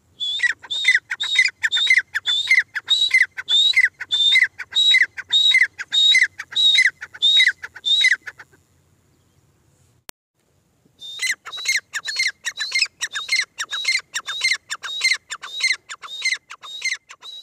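Gray francolin calling: a long run of loud, rapidly repeated notes, each falling in pitch, about two a second. It breaks off about eight seconds in and, after a short pause, starts again with a faster run.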